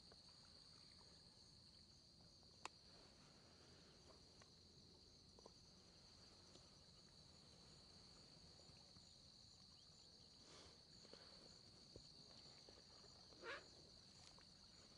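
Near silence with faint, steady insect song: a continuous high buzz with a fainter pulsing trill above it. A single soft click comes about two and a half seconds in.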